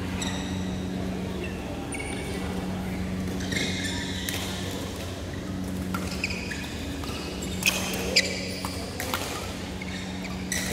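Badminton rally: high, short squeaks of court shoes on the synthetic court mat, and two sharp racket strikes on the shuttlecock about half a second apart near the end, over a steady low hum.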